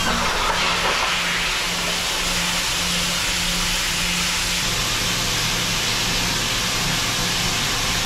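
CNC lathe turning Waspaloy, the machine running steadily with a wide hiss and a faint low pulsing hum. A second low hum joins about halfway through.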